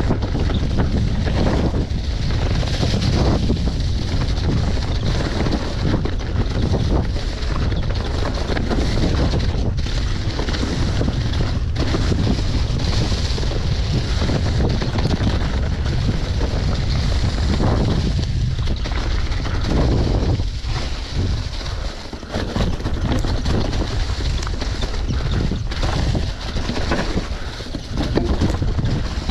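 Rumble and rattle of a downhill mountain bike running fast over a rough dirt trail, with wind rushing over the GoPro's microphone and irregular knocks as the bike hits bumps.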